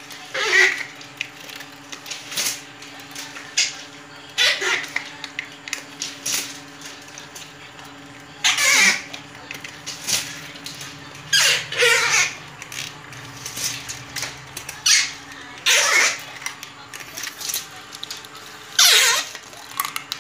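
Copper winding wire being hand-wound onto a toroidal transformer core, with a rasping swish each time a turn is pulled through the core, about every three to four seconds, over a faint steady hum.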